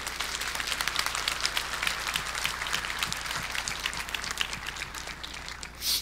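Audience applauding: many hands clapping together, thinning out toward the end, followed by a short loud hiss right at the close.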